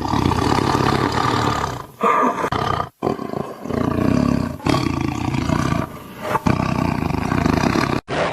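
Tiger growling and roaring: a string of long, loud, deep growls and roars, broken by sudden short gaps where the sound cuts out.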